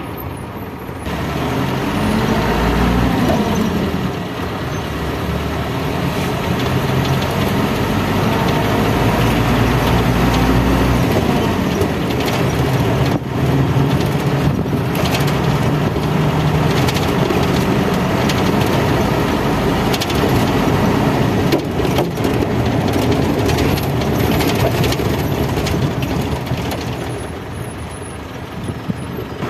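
Engine and road noise inside a moving vehicle's cabin, the engine note rising and falling as the vehicle speeds up and slows, with now and then a sharp rattle or knock.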